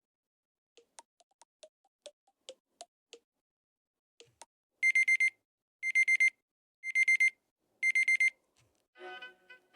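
LG phone alarm tone in the classic digital alarm-clock style: four bursts of quick, high beeps, about one burst a second, after a few soft clicks. Another tone with music starts near the end.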